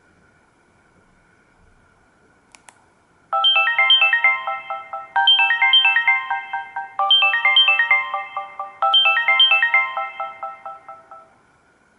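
Samsung GT-C3752 mobile phone playing one of its built-in ringtones through its speaker: a short phrase of quick electronic notes played four times over, starting after a single click about three seconds in.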